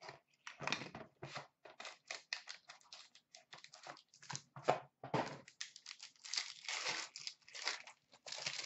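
A sports-card box being opened by hand: irregular rustling, crinkling and tearing of cardboard and packaging, busiest near the end.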